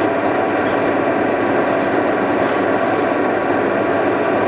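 Defum KNA 110/135 vertical turret lathe running steadily with its head under power feed: a constant, even mechanical drone of the drive and gearing.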